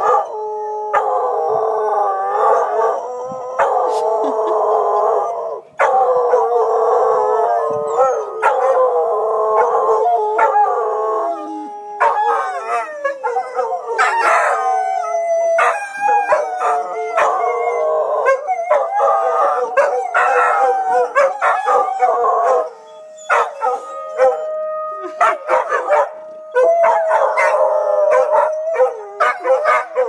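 Several dogs howling together in a long, drawn-out chorus, their overlapping voices rising and falling in pitch.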